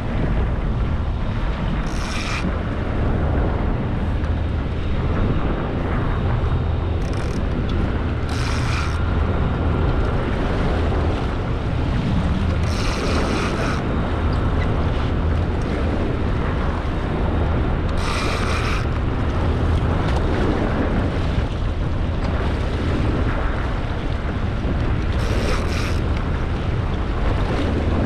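Wind buffeting the microphone over sea water rushing and churning at the stern of a fishing boat, with the Mercury outboard running low underneath. Half a dozen brief bursts of higher hiss come and go every few seconds.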